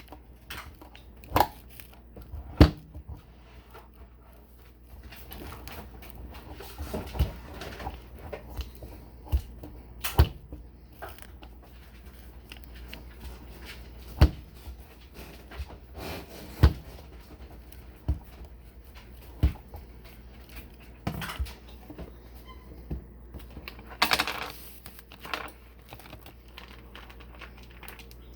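Scattered sharp knocks and clicks, about a dozen at uneven intervals, with light rustling and handling noise between them and a short burst of rustling near the end.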